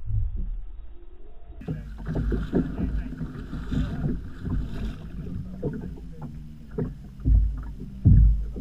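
A large fish thrashing and splashing in a landing net at the side of a boat, with water sloshing and irregular knocks, and two heavy low thumps near the end. Wind rumbles on the microphone throughout.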